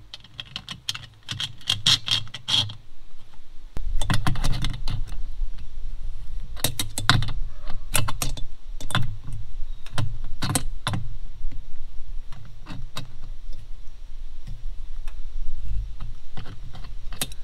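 Irregular metallic clicks and clinks of a wrench and nut on a steel U-bolt as the awning's mounting plate is tightened onto an aluminium roof rack. A low rumble joins in about four seconds in.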